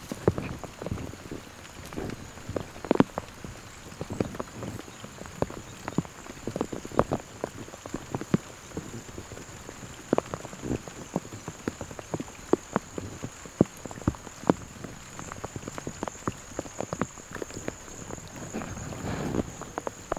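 Light rain, scattered drops ticking irregularly, over a steady high-pitched trill. Near the end comes a swell of rustling as someone walks through wet brush.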